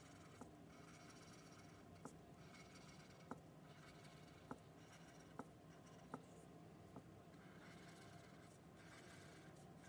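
Felt-tip marker scratching faintly across paper as lines are drawn, with about seven short, sharp taps of the tip as dots are dabbed on.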